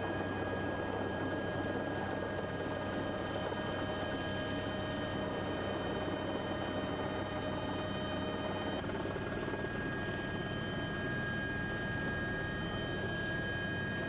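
Helicopter engine and rotor noise heard from aboard the aircraft, running steadily with a constant high whine.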